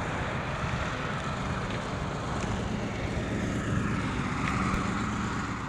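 A motor vehicle passing on the road: a steady rumble with tyre and engine noise that swells a little toward the end and then starts to fade.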